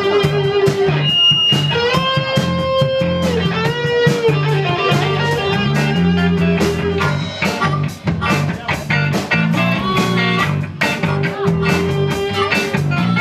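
Live blues-rock band: electric guitars, bass guitar and drums, with a harmonica playing long, bending notes over them.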